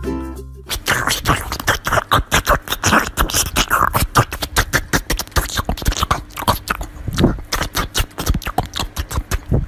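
Small white Pomeranian eating watermelon from a hand: a quick, uneven run of wet crunching and smacking bites, several a second. It starts about a second in, after a few notes of music stop.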